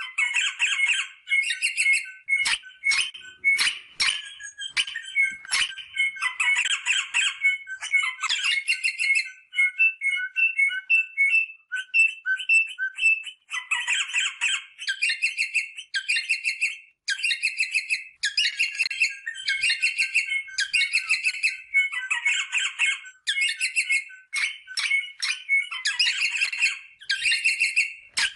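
Rosella parrots calling: a run of harsh, rapidly pulsed chattering calls, each lasting about half a second to a second, with short piping notes between them. These are the calls of rosellas in breeding condition, used to encourage mating.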